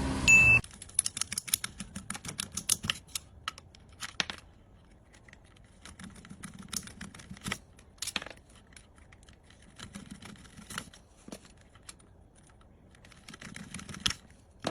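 A motor runs and cuts off about half a second in, followed by scattered light clicks, taps and scrapes of small objects being handled, some in quick runs, with a louder knock near the end.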